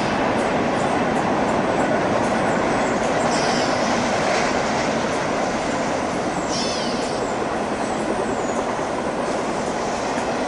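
Double-stack intermodal freight train rolling past steadily, with the continuous rumble and rattle of its well cars' wheels on the rails.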